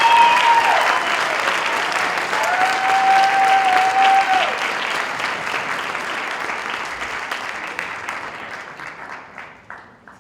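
Theatre audience applauding, dense and loud, with two long held whistles over the clapping near the start. The applause then dies away gradually and is almost gone at the end.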